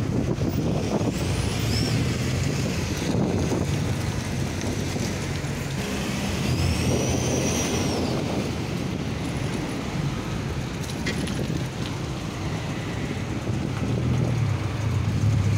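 Road traffic: cars and a van idling and creeping along in a queue, with a steady low engine hum. A brief high squeal rises and falls around seven seconds in.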